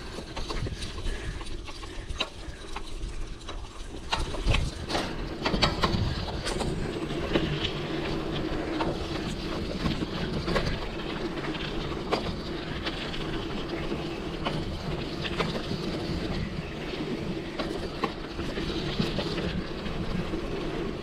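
Mountain bike rolling over a rough dirt trail: steady tyre noise and frame rattle with frequent small knocks, getting louder and busier about four seconds in.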